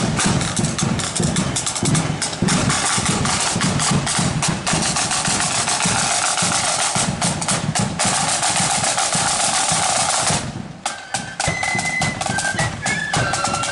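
Marching flute band's snare drums and bass drum playing a fast street beat with rolls. About ten seconds in the drumming breaks off briefly, then the flutes come in with a high melody over the drums.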